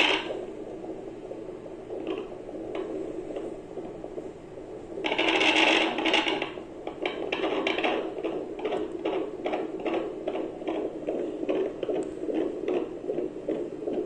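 Fetal Doppler monitor picking up an unborn baby's heartbeat through the mother's belly. There is a loud scraping rustle at the start and again about five seconds in, then a fast, even whooshing pulse of about three beats a second.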